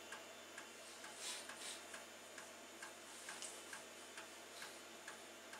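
Amiga 2000's floppy drive DF0 reading a disk track by track during an error check, its head clicking faintly as it steps, about two clicks a second.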